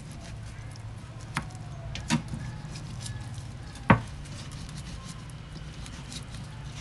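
Three sharp knocks of a knife on a cutting board while a fish is being cleaned, the last the loudest, over a steady low hum.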